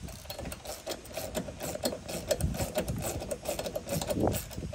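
Small hand ratchet clicking rapidly in short runs as it snugs a bolt with a Nylock nut through a steel van side-step bracket.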